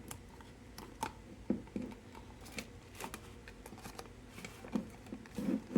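Scattered small clicks, taps and rustling as 620 roll film, its paper backing and spool are handled and wound inside a Kodak Brownie Hawkeye camera, with a few soft knocks.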